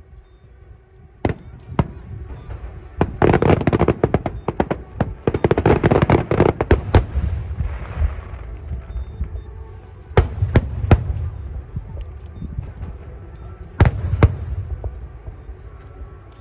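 Aerial fireworks shells bursting. After two single bangs comes a dense run of rapid bangs and crackling from about three to seven seconds in, then a few more single bangs spread apart.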